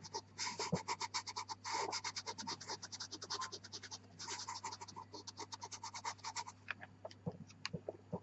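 Pastel pencil scratching across velour pastel paper in quick, rhythmic back-and-forth shading strokes, stopping about six and a half seconds in; a few light clicks follow.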